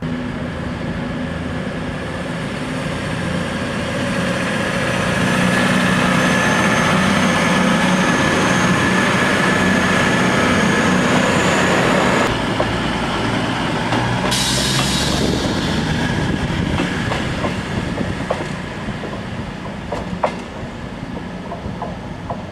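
Virgin Voyager diesel multiple unit passing at a station platform, its underfloor diesel engines humming with a whine that builds to a peak before an abrupt change about twelve seconds in. A short hiss follows, then a quieter train drone with a few wheel clicks over rail joints near the end.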